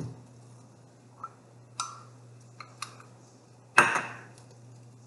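A big spoon clinking and knocking against cookware while peanut butter is spooned into a pan: a few light clicks, then one sharper knock about four seconds in. A steady low hum runs underneath.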